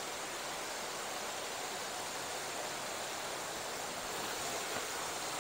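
Steady, even rushing noise of flowing water.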